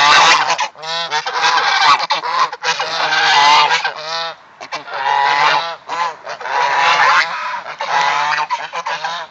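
A flock of domestic geese honking loudly, calls overlapping almost without a break, with a short lull about halfway through.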